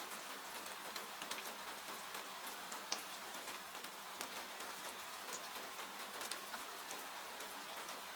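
Steady rain hiss with scattered crackles and pops of a wood fire burning in a fireplace, one sharper pop about three seconds in.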